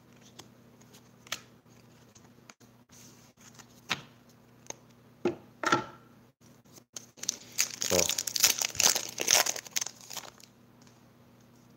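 Light scattered taps and clicks of trading cards being handled and set down, then about three seconds of loud crinkling and tearing as a foil Pokémon booster pack wrapper is ripped open.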